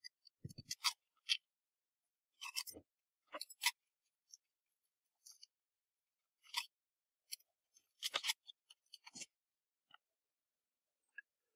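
A small parcel being cut open with a utility knife and its plastic wrapping handled: short crinkles and clicks in several clusters, with silent gaps between.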